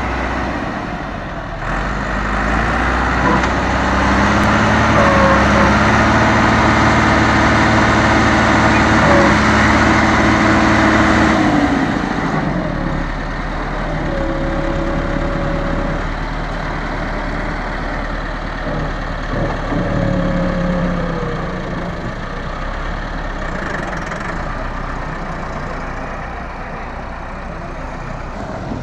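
Massey Ferguson 385 tractor's four-cylinder diesel engine working under load as its front loader bucket pushes through wet mud. The engine is louder and steady for about ten seconds, then eases back about twelve seconds in and keeps running at a lower level.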